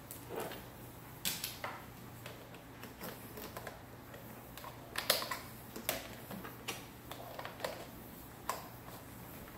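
Irregular plastic clicks and taps from handling a Bissell PowerForce Helix upright vacuum as its power cord is gathered up, with the loudest knock about five seconds in.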